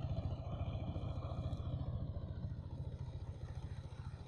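Single-cylinder diesel engine of a two-wheel power tiller chugging steadily under load as it pulls the tiller through the soil. It grows slightly fainter as the machine moves away.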